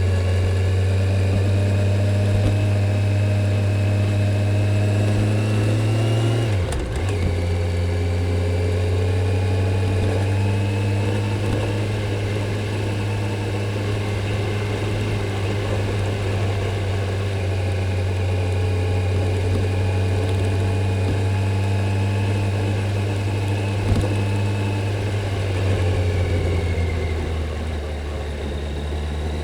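Kawasaki Z900's inline-four engine on the stock exhaust, running at a steady pace while riding. The engine note briefly dips and recovers about six seconds in, with a single click later on, and eases off lower near the end.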